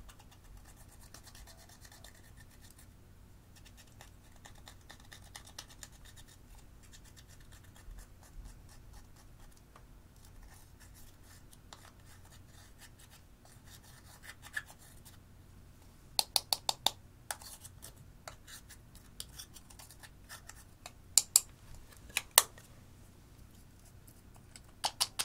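Pressed eyeshadow being crushed and scraped out of a plastic compact with a small tool: faint scratching and crunching of the powder, then a quick run of sharp clicks about two-thirds of the way through and a few louder single clicks near the end.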